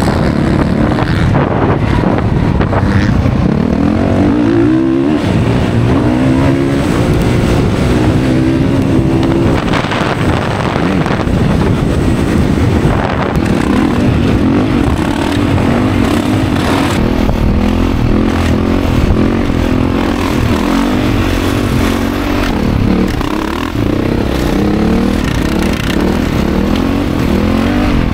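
Dirt bike engine running hard on a motocross track, its pitch repeatedly rising and then dropping as the rider goes up through the gears and back off the throttle.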